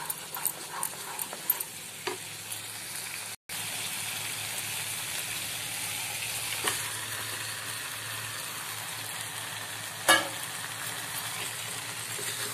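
Thick spice masala sizzling in a nonstick kadai, with light clicks from a spatula stirring it in the first couple of seconds. The sizzle breaks off for an instant, then goes on steadily as raw mutton pieces are tipped in from a steel bowl, with one sharp loud knock about ten seconds in.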